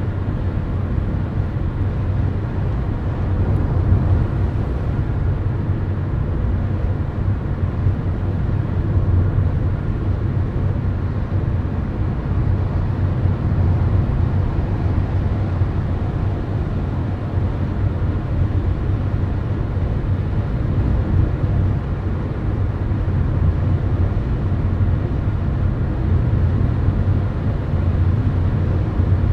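Steady low rumble of a car driving at highway speed, heard from inside the cabin: road and tyre noise with the engine underneath.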